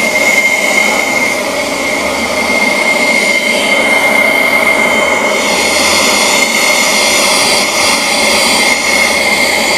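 KM Grand LR-BL570 battery-powered blower running steadily: a rush of air under one high, steady whine from its fan.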